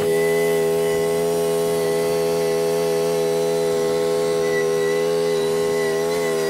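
Engine of a Bushranger Spartan zero-turn ride-on mower running at a steady speed, an even buzzing hum that wavers slightly near the end.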